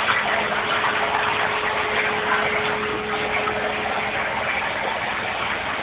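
Hypertherm 1000 plasma torch cutting 1/4-inch mild steel on a CNC table: a steady hiss of the plasma arc, with a steady hum under it.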